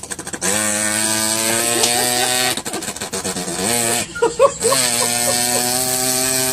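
A boy imitating a small 50 cc motorbike (a Zanella 50) with his mouth: a steady buzzing held note, broken about two and a half seconds in by a rapid rattle, then a few quick revving blips and another long held note.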